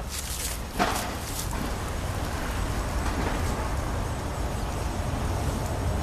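Handling noise: a sharp knock about a second in, then rustling as the hands work near the drain pan and jar, over a steady low rumble.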